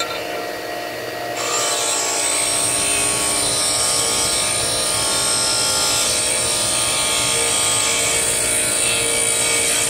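DeWalt DW758 bench grinder running steadily. About a second and a half in, a square common-steel bit is pressed against the grinding wheel, adding a steady, high, hissing grind as a relief angle is ground onto a lathe tool bit.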